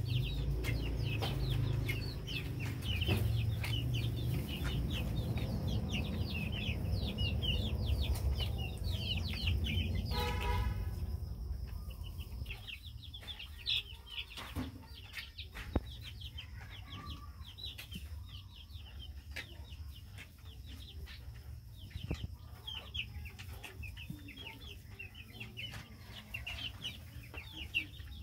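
A brood of young chickens cheeping continuously, many short high chirps overlapping, with one louder drawn-out call about ten seconds in. A low rumble sits underneath for the first dozen seconds, and a few faint clicks are scattered through.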